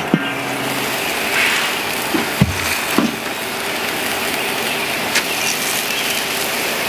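Ribeye steak sizzling on a charcoal kettle grill's grate, a steady hiss, with a sharp metal click, a heavy thump and a few lighter knocks as the grill lid is lifted and the grill press is handled.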